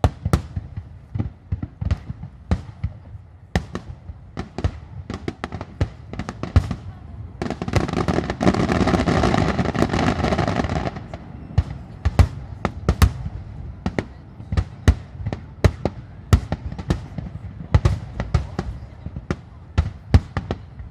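Starmine fireworks bursting in rapid succession, a steady stream of sharp bangs, thickening into a dense continuous barrage about halfway through. Music plays along.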